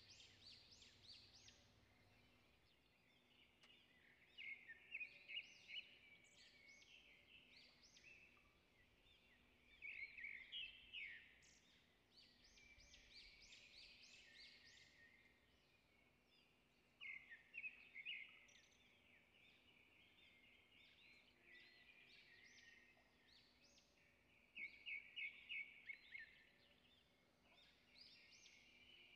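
Faint birdsong: clusters of quick chirps and rapid trills, louder in a few short spells, over a faint steady low hum.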